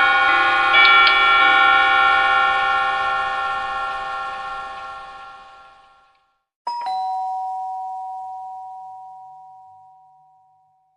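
Bell-like chimes ring as a chord of many tones and fade out over about six seconds. Then, a little past the middle, a single doorbell-style ding-dong chime is struck and rings out, fading away.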